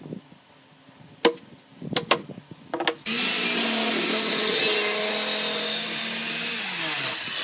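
A few light knocks of handling wood, then about three seconds in an electric power saw starts suddenly and cuts wood, loud and steady, its motor winding down near the end.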